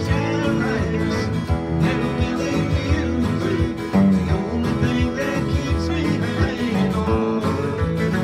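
Acoustic guitars and another plucked string instrument playing a country tune together, with steady strummed chords and picked notes.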